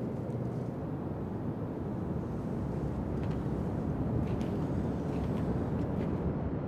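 Steady low rumble of city ambience, with a few faint, scattered ticks.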